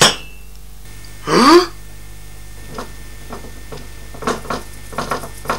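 A sharp click at the start, then a short, loud, rising vocal exclamation about a second and a half in. Scattered light taps follow in the second half, over a steady low electrical hum.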